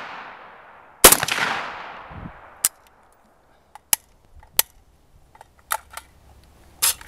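A single shot from a WASR-10/63 AK rifle in 7.62x39 about a second in, trailing off over about a second and a half. Then come a handful of short, sharp metallic clicks and clacks as the rifle is handled after firing.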